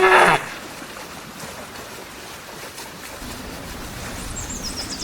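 Hippopotamus giving one short, loud call that drops in pitch, followed by a steady wash of water. High bird chirps come in near the end.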